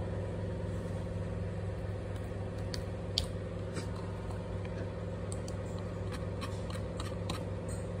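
A steady low mechanical hum with a few faint clicks.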